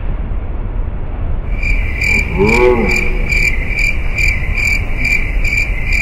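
Cricket-chirp sound effect: evenly spaced chirps, about two and a half a second, starting a little under two seconds in, over a steady low rumble. A short warbling tone rises and falls near the middle.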